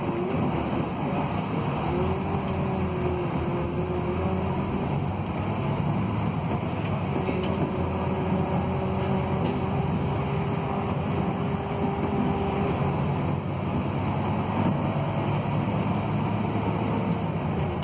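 Cabin sound of a Scania K280UB city bus under way: its five-cylinder Scania DC09 diesel and ZF Ecolife automatic gearbox run with a steady drone over road noise. A faint tone drifts slightly up and down in pitch.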